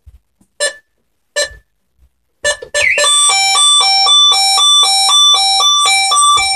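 Burglar alarm system beeping a few short single beeps, then about three seconds in its internal sounder starts a loud two-tone alarm, switching between a high and a low note about twice a second.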